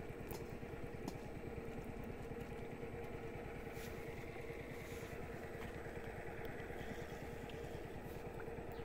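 A small engine running steadily, a fast even chug with a constant hum over it.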